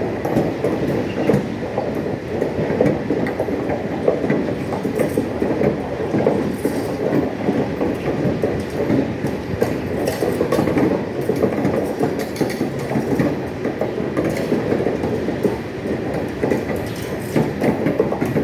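Freight train of sand wagons rolling past, with a steady rumble and the wheels clattering over the rails.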